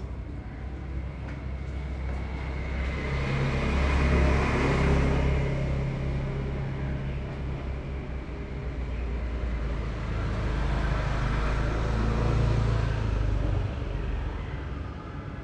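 Road traffic: motor vehicle engines running with a low steady hum and road noise, growing louder about four seconds in and again about twelve seconds in.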